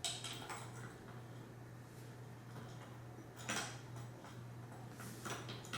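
Faint metal clicks and clinks of a bolt being fitted and started into the chair's backrest bracket, a few scattered taps over a steady low hum.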